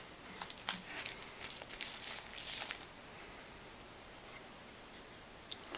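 Protective plastic film being peeled off a tempered glass screen protector: a run of short crinkling, tearing crackles that stops about three seconds in, then one small click near the end.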